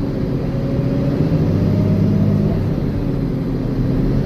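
MAN D0836 LOH02 inline six-cylinder diesel of a Van Hool A330 city bus idling steadily through an open exhaust pipe, a deep, even engine note.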